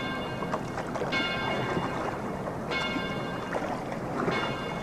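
A bell tolling at an even pace, struck about every second and a half, each strike ringing on and fading before the next: three strikes in all.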